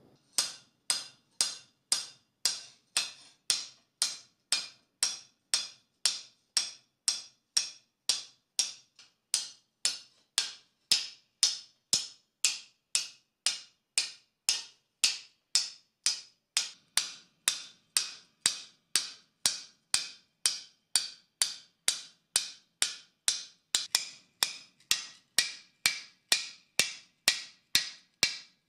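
Steady hammer blows, about two a second, of a hammer's peen on a copper sheet lying on an anvil, each strike a sharp metallic knock with a short high ring, texturing the sheet with rows of peen marks.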